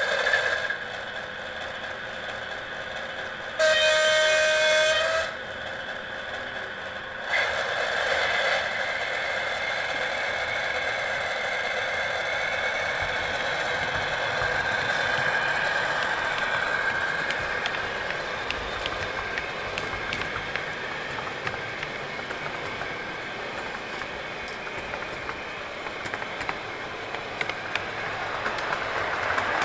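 Sound module of a gauge 1 V100 model diesel locomotive, played through the model's small loudspeaker: the diesel engine running, one horn blast about 3.5 s in lasting about a second and a half, and from about 7 s in the engine sound grows louder and stays up as the loco pulls its tank train away.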